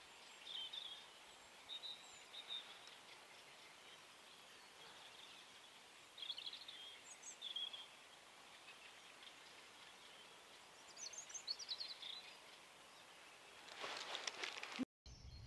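Small birds chirping in short calls over a faint, steady outdoor hiss. Near the end comes a burst of rustling handling noise, then the sound cuts off abruptly.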